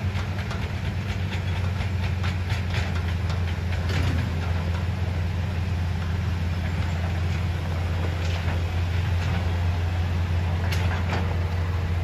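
Hitachi hydraulic excavator's diesel engine running under load with a steady low drone, overlaid by frequent irregular clanks and rattles of metal and stones as the machine works.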